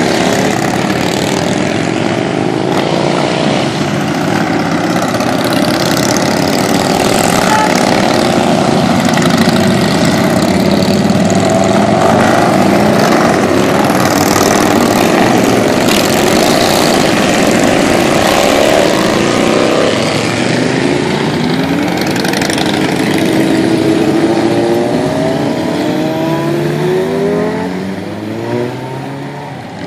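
A procession of motorcycles riding past one after another. Their engines overlap in a continuous loud drone, with pitch rising as riders accelerate away. The sound eases off near the end.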